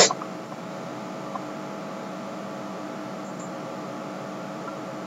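Steady microphone hiss with a faint electrical hum, after a brief loud noise right at the start. Two faint computer mouse clicks, one about a second and a half in and one near the end.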